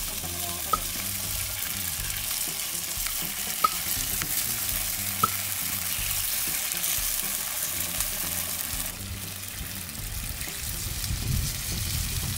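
Batter sizzling steadily in the hot wells of clay num krouk pans over a wood fire. A few sharp clicks sound in the first half.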